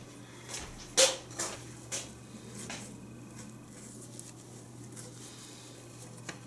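A few light knocks and taps of handling on a wooden workbench in the first three seconds, the loudest about a second in. Then faint rubbing of a rag wiping excess glue from a freshly glued wooden joint.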